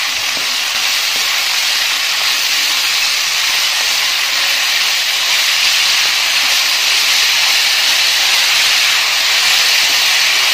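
Freshly added sliced onions and green chillies sizzling steadily in hot oil in a large aluminium pot as they are stirred with a wooden spatula.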